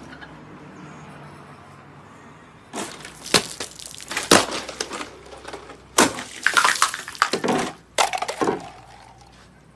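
Straight sword with a patterned steel blade slashing through full plastic water bottles: three bursts of sharp cracks and crunching plastic, with splashing water.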